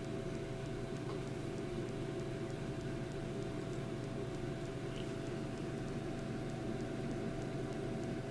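Steady low hum and hiss with a faint steady tone above it, unchanging throughout.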